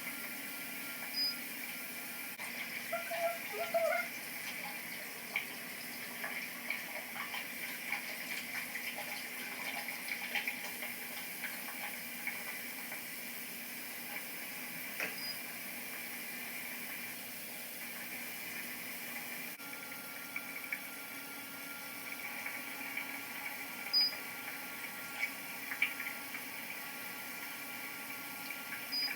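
Water running from a bathroom sink tap, with scattered small splashes and clicks from washing at the basin.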